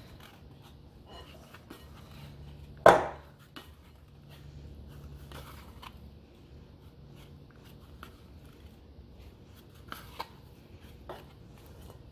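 Plastic dough scraper working sticky sourdough dough in a glass mixing bowl: quiet scraping and folding as the bowl is spun. One sharp knock about three seconds in is the loudest sound, with a few lighter knocks near the end.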